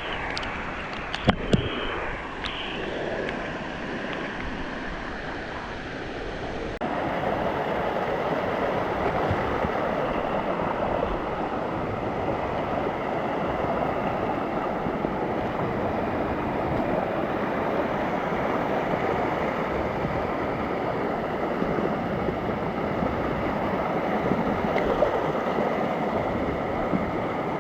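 Steady rushing of cascading water, with two sharp knocks about a second in. Around seven seconds in, the water noise suddenly gets louder and fuller.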